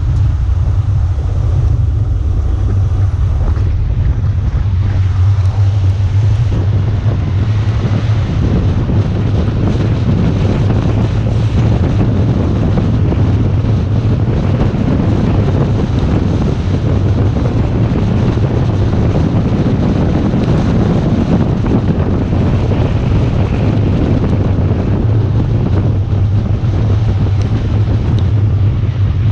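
Wind buffeting the microphone of a camera moving fast downhill: a loud, steady, deep rush with a hiss over it that barely changes.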